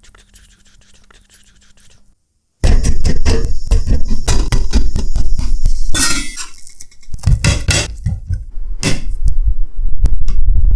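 Kitchen utensils clattering and clinking against dishes in quick, irregular knocks. The clatter starts loud after a couple of seconds of faint sound and eases briefly partway through.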